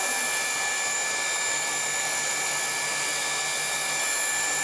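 Electric air blower running steadily, filling a giant balloon: a constant rush of air with a high motor whine.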